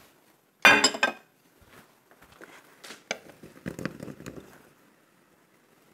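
A wooden spoon stirring and scraping in a clay tajine, with scattered light knocks. The loudest sound is one short clink with a brief ring, about a second in.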